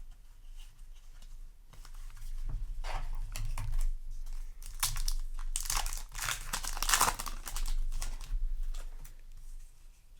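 Foil booster-pack wrapper of a Yu-Gi-Oh! card pack crinkling and being torn open, with faint rustles at first and the loudest crackling about halfway through.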